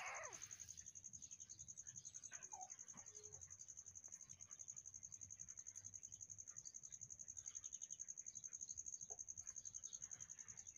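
A kitten meows once right at the start, the cry falling in pitch. After that a faint, steady high insect trill pulses several times a second.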